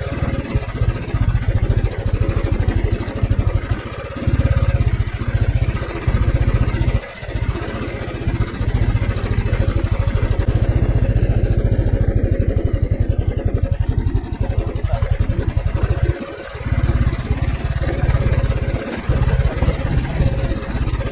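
Royal Enfield Thunderbird 350's single-cylinder engine running under way on a dirt trail, a rapid steady beat. The note dips briefly a few times as the throttle eases off.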